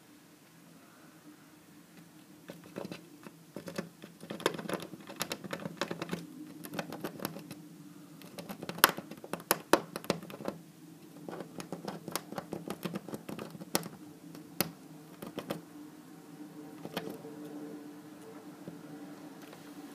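A squirrel scrabbling and gnawing at window glass: quick, irregular clicks and scratches of claws and teeth, thickest through the middle, with a few sharper taps about halfway, over a faint steady low hum.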